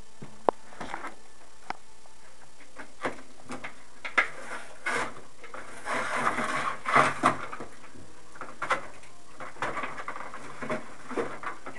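Scattered small clicks and rustles, with a busier patch of rustling about six to seven seconds in.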